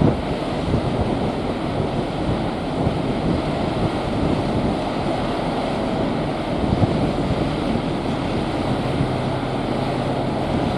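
Wind buffeting the microphone on the deck of a moving cruise ship: a steady low rushing noise with small gusts.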